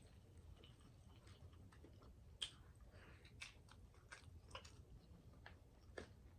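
Faint chewing and mouth clicks of someone eating fried croaker fish, with scattered sharp ticks, the loudest about two and a half seconds in and again near the end.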